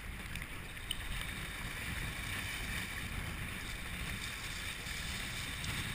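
Strong wind buffeting the microphone of a deck-mounted camera on a sea kayak, over the hiss and splash of choppy water against the hull and paddle. One brief tap about a second in.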